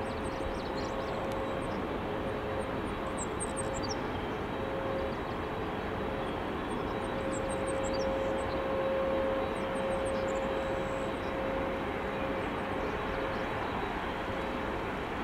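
Boeing 787-9 Dreamliner with Rolls-Royce Trent 1000 turbofans on final approach and flare: a steady jet engine rumble with one held whine in it, growing a little louder about eight to ten seconds in.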